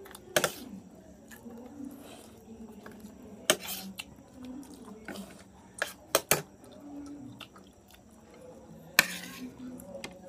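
Spoons and cutlery clinking against plates and bowls while eating, about half a dozen sharp, short clinks at irregular intervals.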